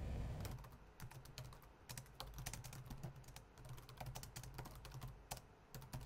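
Typing on a laptop keyboard: a quick, irregular run of soft key clicks starting about half a second in, over a low room hum.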